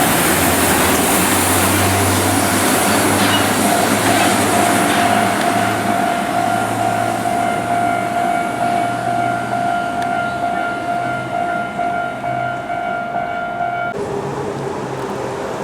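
A heavy double-trailer haul rig runs past: a low engine drone under loud tyre and rolling noise, with a steady whine that slowly fades. About fourteen seconds in, the whine cuts off abruptly and a lower tone takes over.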